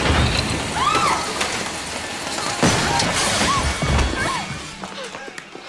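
Horror film soundtrack: tense score with sudden crashes and thuds of things being knocked about, and several short rising-and-falling cries from a fleeing woman. It fades down near the end.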